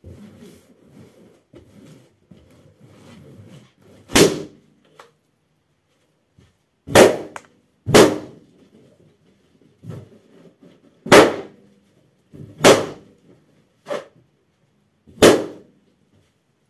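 Latex party balloons bursting one after another under a stockinged foot: about seven sharp pops, irregularly spaced a second or three apart, the first about four seconds in. Before the first pop there is only faint rustling of rubber and feet on the carpet.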